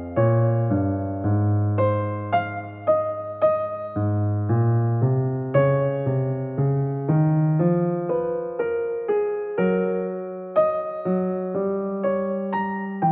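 Gentle background piano music, single notes struck about twice a second and left to ring and fade.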